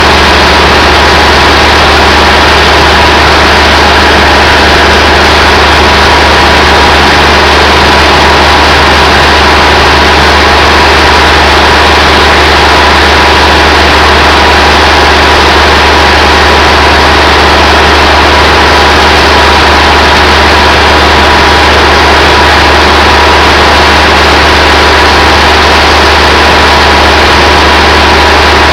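Engine driving a sawmill, running steadily at a constant, very loud level, with no change in load.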